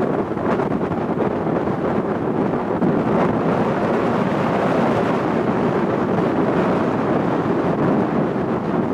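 Loud, steady jet noise from an RAF Eurofighter Typhoon's twin engines during a display, mixed with wind buffeting the microphone.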